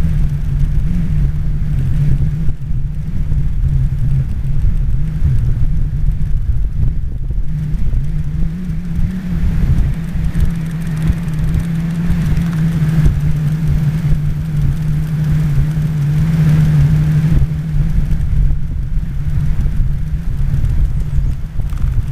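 Wind rushing over the microphone and road rumble from riding along a paved road, over a steady low hum that never lets up.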